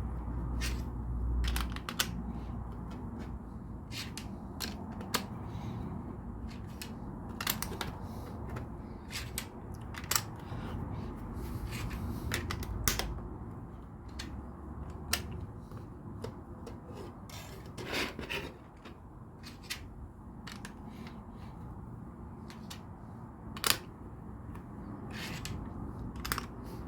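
LEGO plastic bricks and tiles clicking as they are handled and pressed together, irregular sharp clicks and light rattles one after another, with a louder snap about 24 seconds in.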